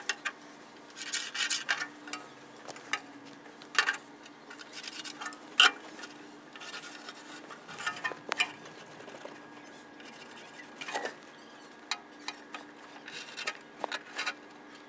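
Scattered small clicks, taps and short scratching sounds of hand tools handled against rusty sheet metal while a cut line is measured and marked out, over a faint steady hum.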